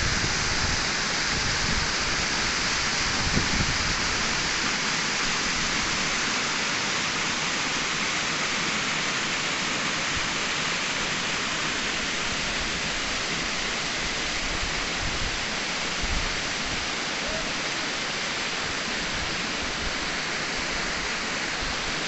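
Water rushing over small rock cascades in a mountain stream, a steady, even hiss.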